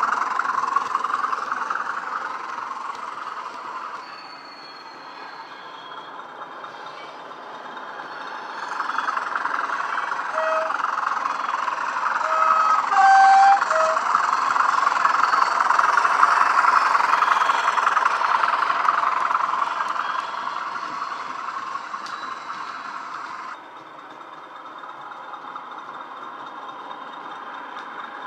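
Model Class 20 diesel sound decoder playing the English Electric engine sound through a small megabass speaker, swelling and fading as the locomotive runs past. A few short horn notes of two different pitches sound around the middle.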